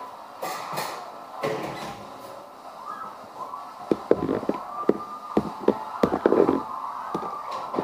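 Metal spoon clinking and scraping against a plastic tub while fruit salad is mixed. Soft handling at first, then a quick run of sharp clicks and knocks from about four seconds in.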